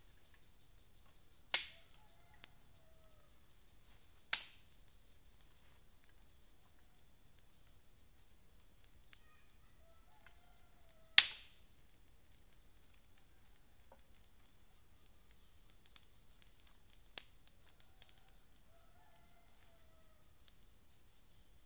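Small campfire crackling, with scattered small ticks and a few loud sharp pops that ring out briefly, about a second and a half in, around four seconds, around eleven seconds and again at the very end. A steady high insect drone and faint bird calls sit underneath.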